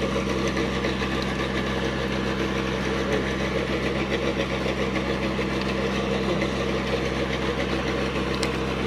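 Steady, unbroken drone of a sand-dredging boat's engine running, with one short click near the end.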